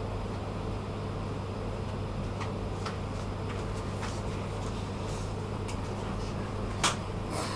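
Steady hum of a stationary subway car's ventilation heard from inside the car, with a few faint ticks and one sharp click about seven seconds in.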